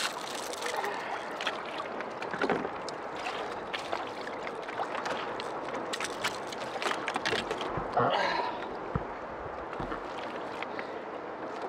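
Water slapping against the hull of a sail kayak, with wind on the microphone and scattered small knocks and clicks from fish and tackle being handled on deck; a louder burst of noise about eight seconds in.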